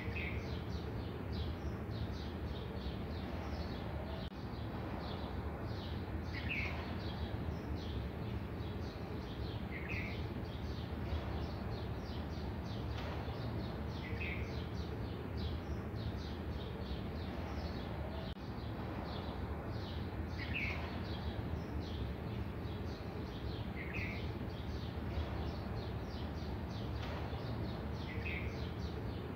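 Small birds chirping continuously, with one short, brighter call repeating every few seconds, over a steady low hum.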